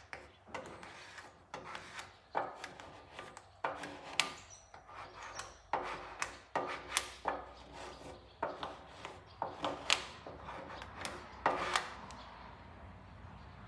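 Squeegee rubbing over a sticker laid on a surface wet with soapy water, in a series of short scraping strokes, about one or two a second, that work the water out from under it. The strokes stop near the end.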